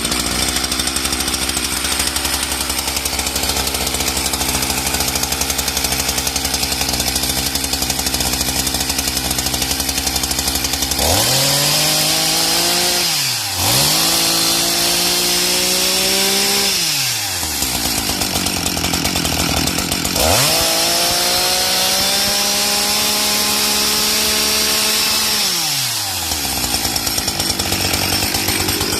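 Husqvarna 364XPG two-stroke chainsaw idling, then revved up three times. Each rev is held for a few seconds before the engine drops back to idle.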